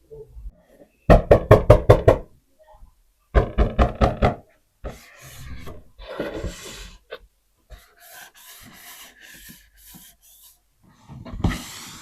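Rapid knocking: two quick runs of about eight sharp knocks each, roughly two seconds apart, followed by softer rustling and hissing sounds.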